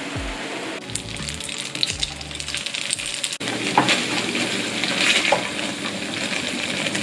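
Dumplings wrapped in wonton skins and pieces of radish cake sizzling as they pan-fry in oil, turned with a wooden spatula. The sizzle starts about three and a half seconds in, after a quieter stretch of shredded radish being stirred with poured batter over background music.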